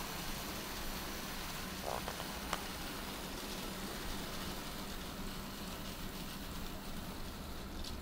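00 gauge model steam locomotive and goods vans running along the track: a steady hissing rumble with a faint hum, and a couple of sharp clicks about two seconds in.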